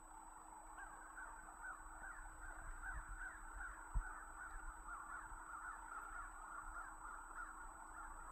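A flock of birds calling all at once: a dense, unbroken chorus of many short overlapping calls. A single low thump sounds about four seconds in.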